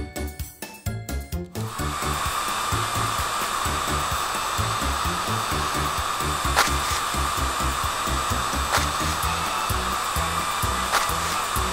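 Cartoon sound effect of a spinning car-wash brush: a steady motor-like whir with hiss that starts about two seconds in, over background music with a repeating bass beat.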